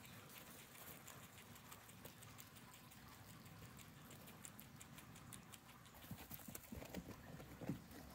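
Several guinea pigs munching hay and greens: a steady run of fine crunching clicks, with a few louder knocks near the end.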